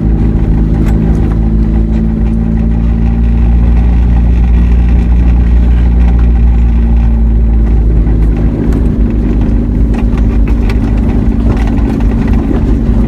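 Vehicle engine running steadily at low speed, a constant low hum and rumble.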